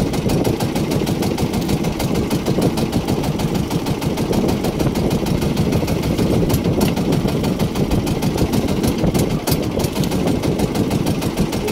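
An outrigger fishing boat's engine idling steadily, with a rapid, even firing beat.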